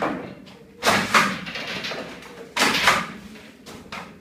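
Plastic PEX heating pipe being handled off its coil, scraping and rustling against itself and the foil-faced floor insulation: two swishing scrapes, about a second in and again near three seconds.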